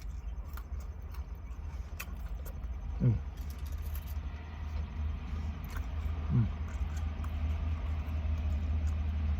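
Low, steady rumble of a motor vehicle engine running nearby, slowly growing louder. Two short hums of a man's voice and a few small clicks come over it.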